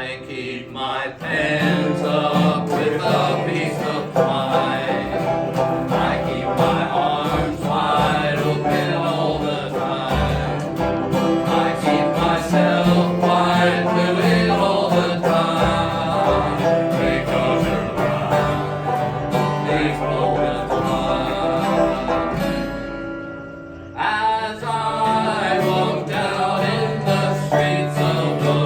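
Live music from a small acoustic band: strummed and plucked string instruments playing through a break in the song, with a brief drop in the playing a little before the end before it picks up again.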